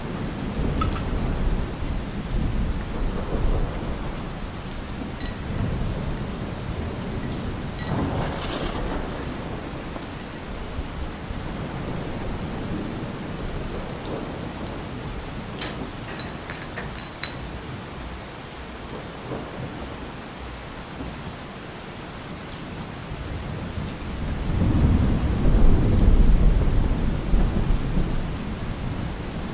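Steady rain with low rolling thunder, which swells into a louder rumble near the end. A few faint clicks sound in the middle.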